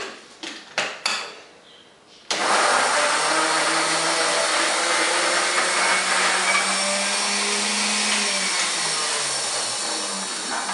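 A few knocks as the blender jar and lid are handled, then a countertop blender switches on abruptly about two seconds in and runs steadily, pureeing chopped sweet potato with water; its motor hum fades near the end.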